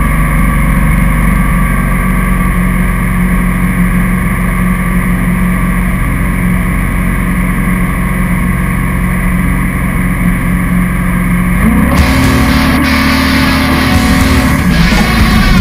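Glastron Carlson CVX 20 jet boat's engine and jet drive running steadily at speed, with rushing water from the wake. About twelve seconds in, rock music with guitar comes in over it.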